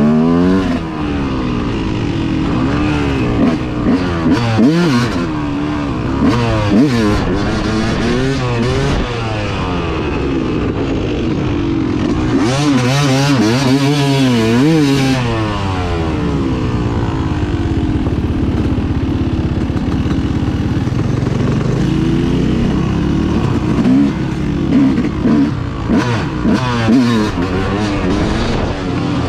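Dirt bike engine running under way, heard from the bike itself, its pitch rising and falling again and again as the throttle opens and closes.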